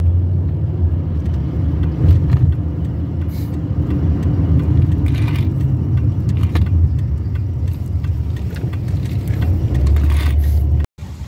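Car driving along a city road: a steady low rumble of road and engine noise, with small rattles and clicks on top. It cuts off abruptly near the end.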